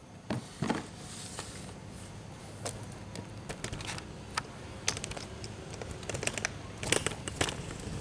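Pliers and metal air-line fittings handled and worked, giving scattered irregular clicks and clinks, with a quick cluster of sharper clicks about seven seconds in.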